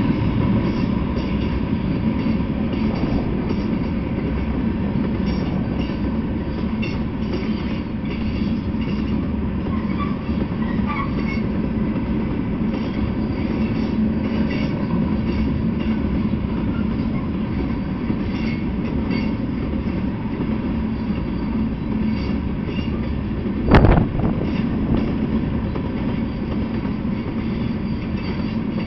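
Freight train of covered hopper cars rolling past at steady speed, a continuous rumble of steel wheels on rail, heard through a trail camera's microphone. A single sharp bang stands out about three-quarters of the way through.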